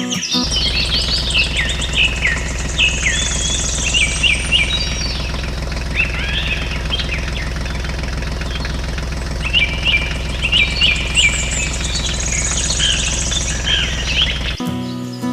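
A small motor running with a steady low buzz, with birds chirping over it. Both start just after the music drops out and stop when the music returns near the end.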